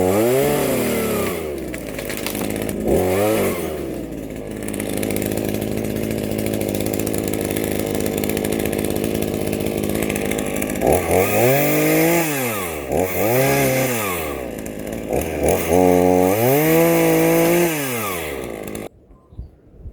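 Two-stroke chainsaw cutting through a large tree limb: revving up and down several times, running steadily under load in the middle stretch, then cutting off abruptly near the end.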